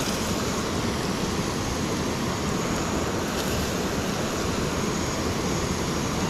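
Steady rushing noise of a river running over rocks, mixed with oil sizzling in a cast iron skillet over a camp stove.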